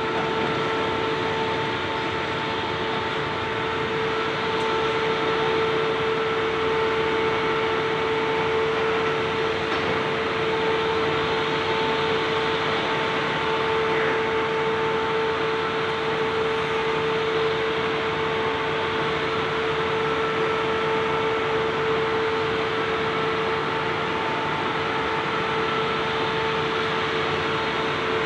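Steady drone of heavy demolition machinery, a constant hum with a fixed whine over an even hiss and no distinct crashes of falling debris.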